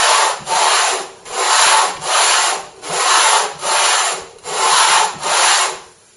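Grass tree wood bowl being rubbed by hand across a flat sheet of 60-grit sandpaper glued to chipboard, in repeated scratchy strokes a little more than one a second, levelling its base. The strokes stop near the end.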